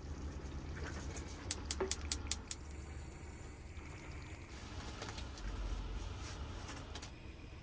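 Tap water running into a small stainless-steel saucepan at a sink, over a steady low hum, with a quick run of sharp clicks about a second and a half in. After about four and a half seconds the sound drops to a quieter, steady background.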